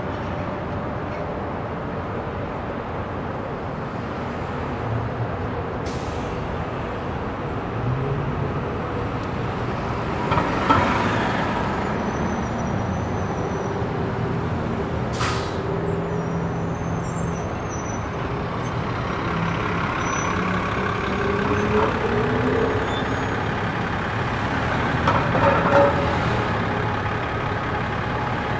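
City street traffic: a continuous rumble of passing vehicles, with the engine hum of heavy vehicles such as trucks or buses rising and falling. A brief hiss comes about ten seconds in, and a few short sharp noises are scattered through.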